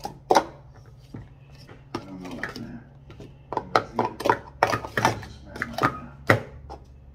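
Hard plastic speed-stacking cups clacking as they are stacked up and slid back down on a mat in a speed-stacking cycle: a fast run of sharp clacks, sparse at first and densest in the second half.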